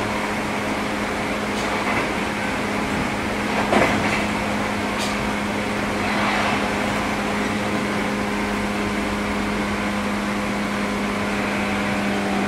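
Steady hum and rumble of equipment inside a JR 103 series electric train car, with a brief sharper knock about four seconds in.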